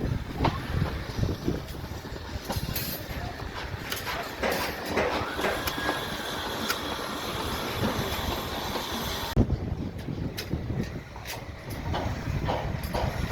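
Construction-site machinery noise: a steady mechanical rumble with many irregular clanks and knocks, changing abruptly about nine seconds in.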